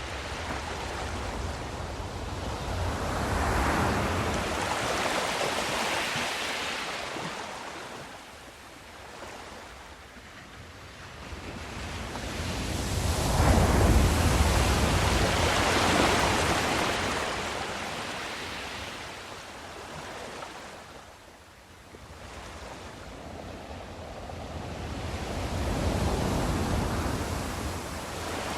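Ocean waves breaking and washing up, the rushing noise swelling and fading in slow surges about every ten seconds, the loudest one near the middle.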